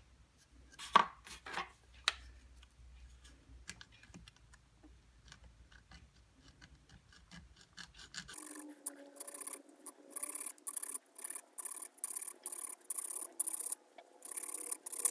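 Light clicks and knocks of tools and parts being handled, the sharpest about a second and two seconds in. About eight seconds in, a hand file starts rasping in even back-and-forth strokes, about two a second.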